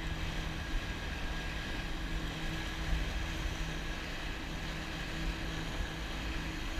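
Jet ski engine running steadily at slow speed, about 7 miles per hour, with a steady hum over the rush of water churned up in its wake.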